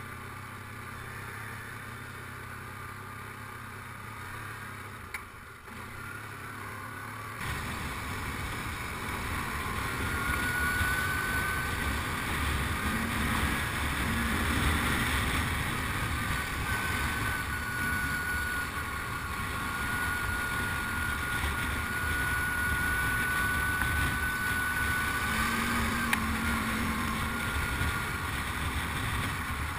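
ATV (quad bike) engine running under way, a steady engine sound heard from the rider's seat. About seven seconds in it gets louder and rougher, with a heavier low rumble, and a thin steady whine rides over it for much of the rest.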